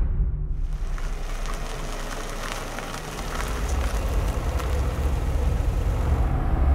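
Steady outdoor background hiss with faint crackles and a low rumble that grows louder from about halfway through.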